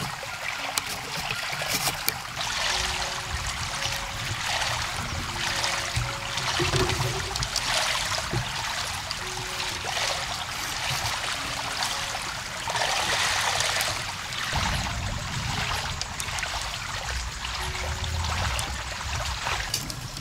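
Water trickling and running steadily, its hiss swelling and easing every second or two.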